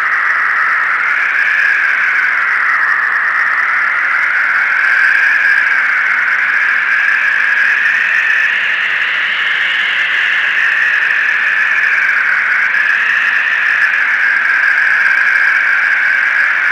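A loud, steady hiss-like drone whose pitch wavers slowly up and down, an ambient sound bed with no distinct events in it.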